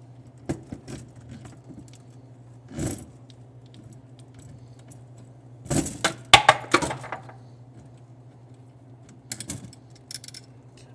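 Irregular metallic clinks and rattles as the prize wheel reel assembly is handled and worked loose from the arcade cabinet, loudest in a cluster around the middle. A steady low electrical hum runs underneath.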